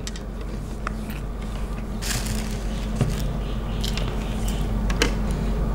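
A person chewing a mouthful of chicken fried rice, with a few small clicks and a brief rustle about two seconds in, over a steady low room hum.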